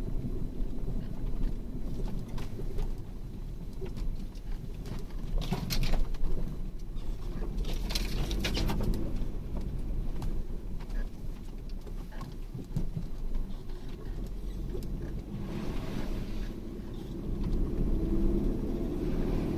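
Vehicle driving slowly over a rough forest track: a steady low engine rumble with scattered knocks and clatters, and brief hissing swishes about six and eight seconds in.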